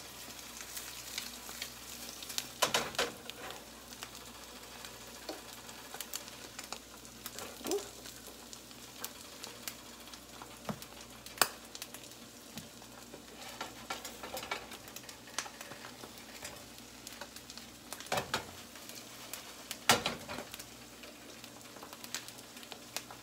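Flipped eggs frying over easy in a nonstick skillet: a steady sizzle with many small crackling pops. A few sharper clicks and knocks stand out, the loudest about 20 seconds in.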